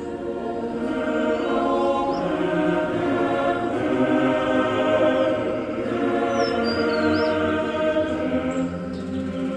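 Music with voices singing long held notes together, choir-like, swelling up in the first second and easing slightly near the end.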